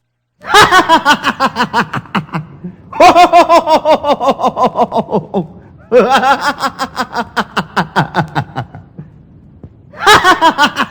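A man laughing in repeated bouts of rapid pulses, several a second, each bout starting loud and high and falling in pitch as it fades. Three full bouts, with a fourth starting near the end.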